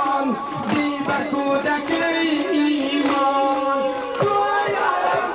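A voice chanting a Muharram mourning lament (noha) in long, wavering held notes, with a few sharp slaps of mourners' hands beating their bare chests (sina zani) at uneven intervals.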